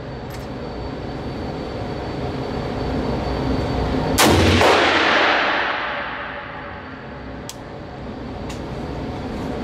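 A single loud rifle shot about four seconds in, with a long echoing decay in the enclosed range. A few fainter sharp cracks come before and after it.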